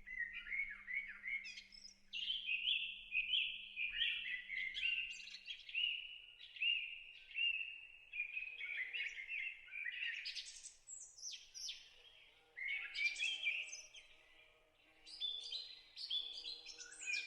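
Birdsong: several small birds singing quick, repeated chirping phrases one over another. Faint soft music tones come in beneath them in the second half.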